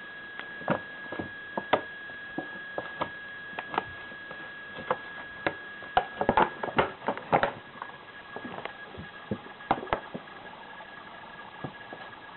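Irregular light taps and clicks, bunched most thickly about halfway through, over a faint steady high-pitched whine.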